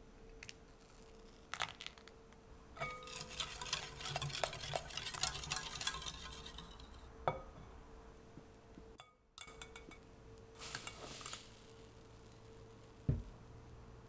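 A wire balloon whisk stirring liquid batter in a glass mixing bowl, its wires clinking and rattling against the glass for about four seconds. Later comes a short soft rustle and, near the end, a single knock.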